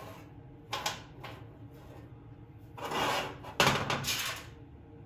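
Clatter of small metal tools and parts being handled on a workbench: two sharp knocks about a second in, then a scraping rustle and a louder clack with a short rattle past the three-second mark.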